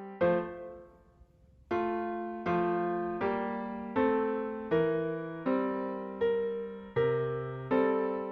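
Background music: gentle electric piano playing one chord after another, each struck and left to ring, with a brief pause about a second in.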